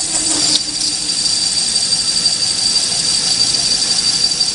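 A Mars metal lathe running with a high-speed-steel parting tool cutting into a 75 mm aluminium bar: a steady high-pitched whine over the machine's running noise, with a short click about half a second in.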